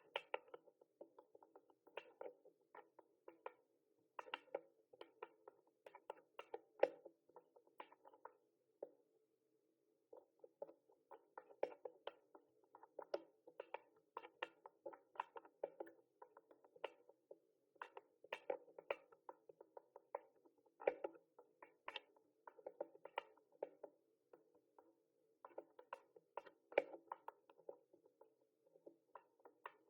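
Mechanical keyboard typing: soft, irregular key clicks, several a second, with a brief pause about nine seconds in.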